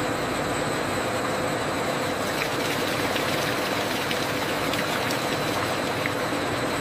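Steady rush of liquid dye pouring from three pipes into a stainless-steel vat over a continuous machine hum, with a few faint ticks.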